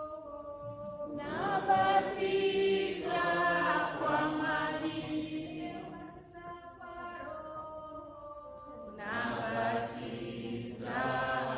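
Voices singing together in a church service, a slow sung phrase that swells louder about a second in, eases off, and swells again near the end.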